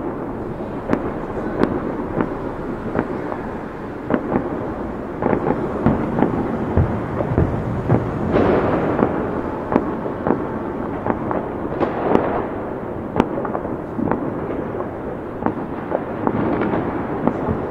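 Fireworks going off continuously: a dense crackle of many small pops with frequent sharp bangs scattered throughout, and three louder swells of crackling about eight, twelve and sixteen seconds in.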